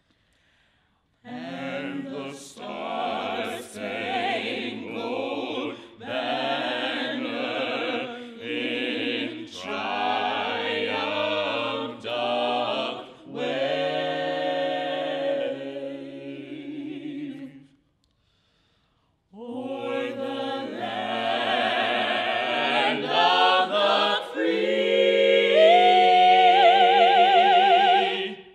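Vocal singing in phrases, breaking off for about a second and a half partway through, then building to a long high note with steady vibrato that cuts off at the end.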